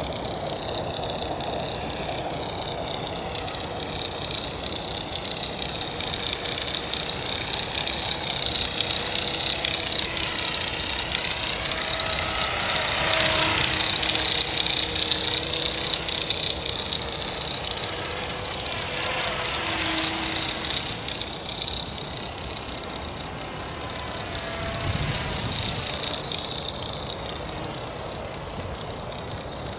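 Accurate 400 electric RC helicopter hovering, its motor, gears and rotors making a high whine with wavering tones, louder through the middle and dropping after about twenty seconds. The sound carries the abnormal noise and vibration left by a crash.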